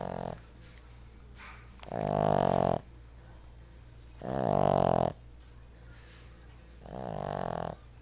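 Seven-month-old Boston Terrier puppy snoring in its sleep: three snores, each just under a second long, about two and a half seconds apart, with the end of another right at the start.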